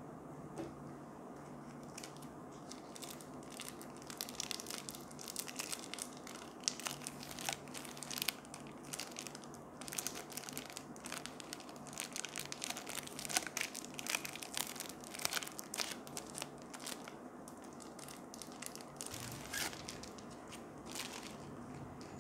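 Thin clear plastic sleeve crinkling as a silicone drinking straw is handled and slid out of it: a run of sharp crackles that thins out near the end.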